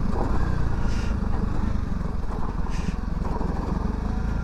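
Honda CRF300 Rally's single-cylinder four-stroke engine running steadily as the motorcycle is ridden, heard from on the bike under a heavy low rumble of wind noise.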